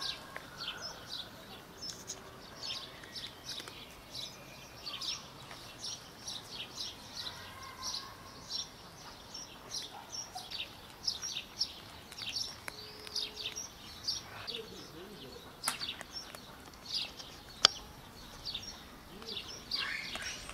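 Small birds chirping repeatedly in short high bursts. Two sharp clicks come in the last third, the second being the loudest sound.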